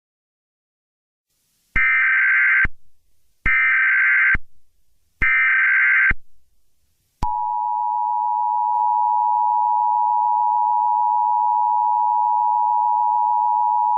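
Emergency Alert System signal: three short bursts of SAME header data tones, each just under a second and evenly spaced, then the steady two-tone EAS attention signal starting about seven seconds in.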